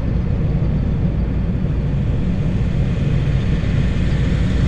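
1990 Ford Econoline E250 van's engine running at idle, a steady low rumble, with the air conditioning blowing.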